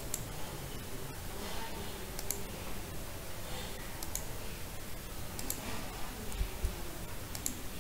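A few sharp computer mouse clicks, some in quick pairs, over a steady faint hiss.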